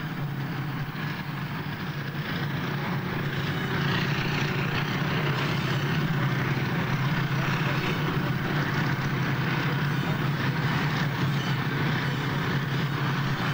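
A heavy armoured vehicle's engine running steadily, heard as a low hum under a broad rushing noise that grows louder about four seconds in.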